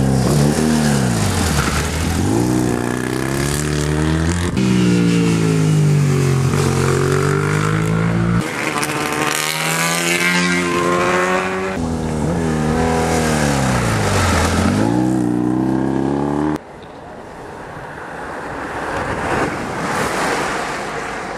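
Racing motorcycle engines revving hard, heard in several short cuts: the pitch sinks as a bike slows for a bend and climbs again as it accelerates away. About two thirds of the way through, the loud engine sound stops and a quieter, noisy engine-and-wind sound takes over.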